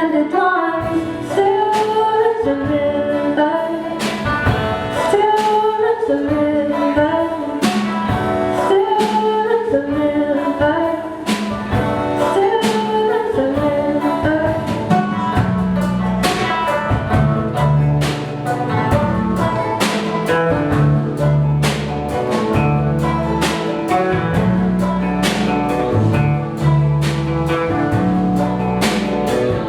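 Live folk band playing: clawhammer banjo and guitar over bass and drum kit, with a sung melody. The bass line comes in heavier about halfway through.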